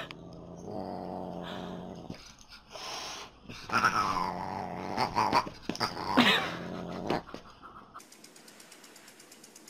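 Siamese cat growling low and steady, then breaking into several long yowls that slide up and down in pitch; the sound ends abruptly about eight seconds in.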